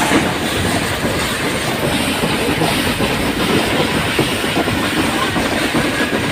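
Ooty toy train of the Nilgiri Mountain Railway running, a steady rumble and clatter of wheels on the rails.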